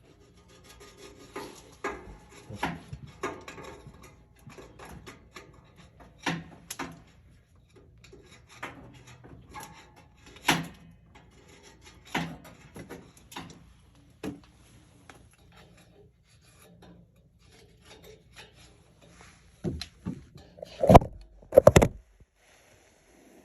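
Irregular scraping, rubbing and knocking of hand tools working on a steam boiler, cleaning out sludge and grime. A cluster of louder knocks comes near the end.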